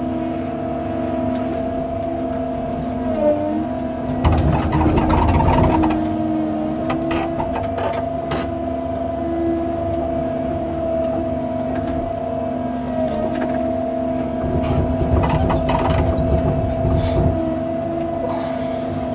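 Cat 309 CR mini excavator running, its engine and hydraulics giving a steady hum with a held whine. There are two louder, rougher stretches with knocks, about four seconds in and again around fifteen seconds.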